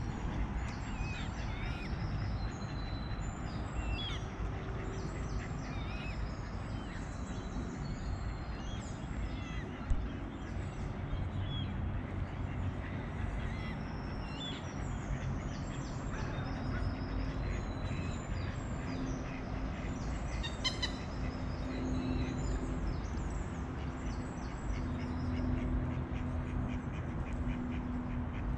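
Mallard ducks quacking, with small songbirds chirping throughout over a steady background hum.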